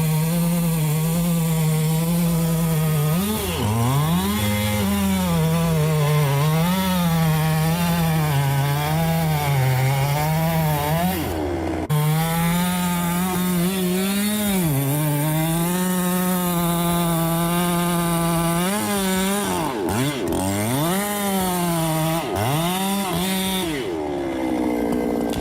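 Chainsaw running at high speed while cutting through wood, its pitch wavering as the engine bogs and recovers under load. The revs dip sharply and pick up again a few times, and the pitch falls away near the end.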